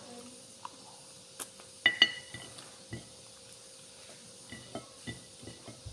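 Tableware clinking: two sharp ringing clinks about two seconds in, then a scatter of lighter taps and clicks.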